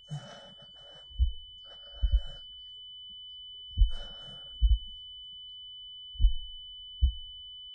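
Film sound design: a steady high-pitched ringing tone over slow, doubled heartbeat thumps and three gasping breaths, the kind of ear-ringing effect used after a gunshot. All of it cuts off abruptly near the end.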